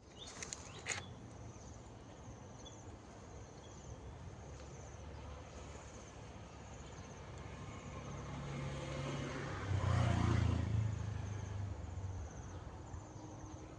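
An insect chirping in short, high, rapidly pulsed trills about once a second. A low engine hum of a passing vehicle swells, is loudest about ten seconds in, and then fades.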